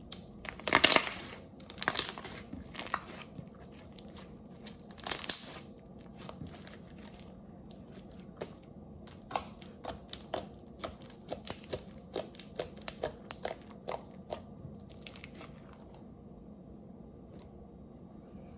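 Homemade glue-and-Vaseline slime being squeezed and stretched by hand. A few loud squelches come in the first five seconds, then a run of quick sticky clicks and pops.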